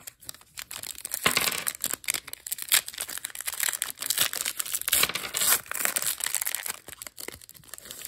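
Foil wrapper of a Panini trading-card pack crinkling and tearing as it is ripped open and the cards are pulled out of it.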